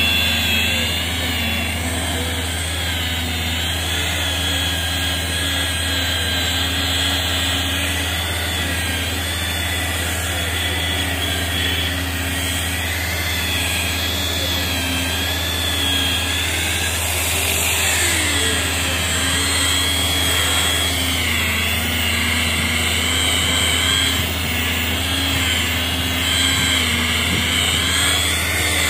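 Electric rotary polisher with a foam pad running on car paint. Its motor gives a steady whine that wavers slightly in pitch, with a brief dip a little past halfway.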